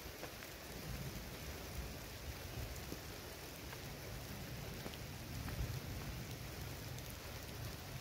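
Heavy rain falling, with large drops ticking here and there over an even hiss and a low rumble underneath.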